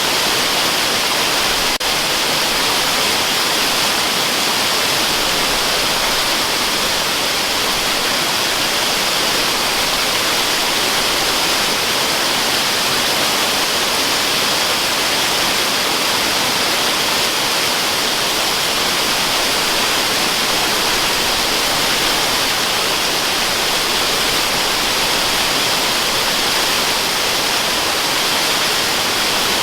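Steady waterfall rush used as white noise: an even, unbroken hiss with little low rumble, with one faint tick about two seconds in.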